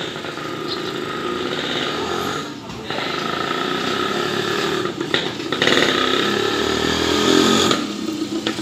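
Small motorcycle engine running close by, growing louder a little past halfway and dropping back near the end.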